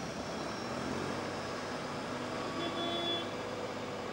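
Boeing 727-264F's Pratt & Whitney JT8D turbofan engines running at low power while the freighter taxis: a steady, even jet noise with a faint thin whine near the middle.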